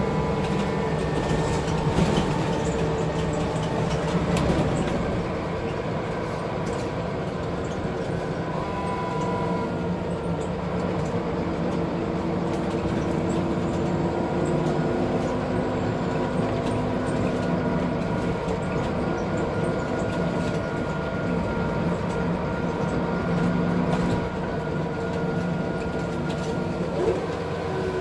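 Scania bus with a Wright Solar body heard from inside while under way: a steady engine and drivetrain drone with whining tones that rise and fall with speed, and a few knocks and rattles from the body. Near the end one whining tone falls in pitch.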